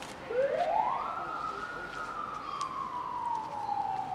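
A siren wailing: one tone sweeps up quickly, holds near its top for a moment, then slowly falls away.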